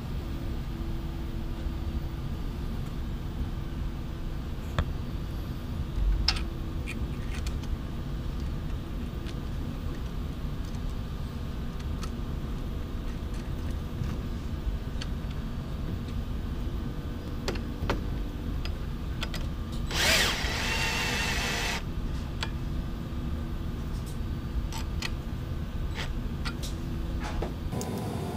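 A cordless drill runs in one short burst of just under two seconds about twenty seconds in, driving the bed plate's mounting hardware. Light clicks and clinks of small hardware sound now and then over a steady low hum.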